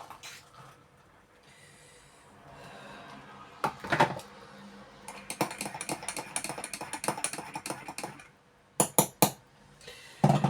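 A spoon and a cup clinking: a couple of knocks, then a few seconds of quick rapid clinking, then three sharp taps near the end.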